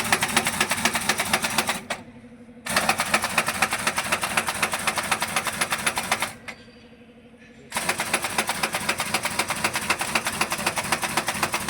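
Pneumatic impact wrench hammering on a truck's wheel nuts in three long rapid-fire bursts, each a few seconds long, with short pauses between them.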